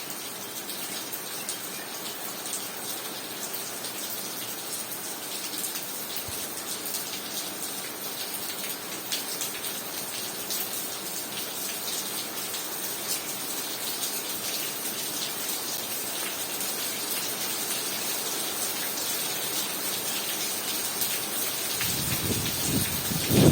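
Heavy rain falling, a dense hiss full of small drop ticks that grows slowly louder. Near the end a low rumble of wind buffeting the microphone comes in.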